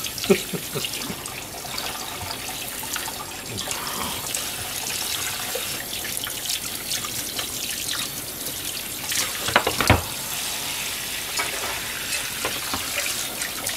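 Kitchen tap running in a stainless steel sink, the stream splashing over a plastic food container being rinsed under it. A sharp knock just after the start and a louder clatter about ten seconds in as the container is handled and set down.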